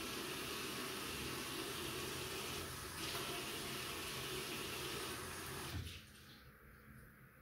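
Bathroom sink tap running steadily into the washbasin while the bowl is wiped by hand, then turned off about six seconds in, with a brief knock as it shuts.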